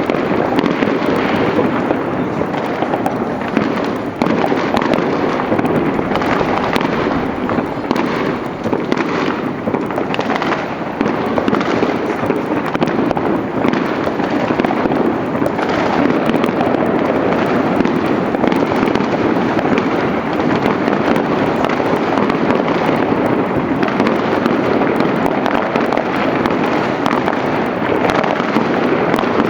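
Fireworks bursting in rapid, overlapping succession, a dense and continuous crackling and popping with no pauses.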